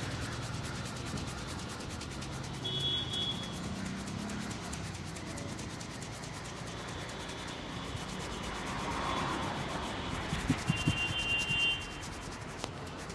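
Hands rubbing and kneading hair and scalp in a head massage, a steady close rustling. About ten seconds in comes a short run of dull thumps.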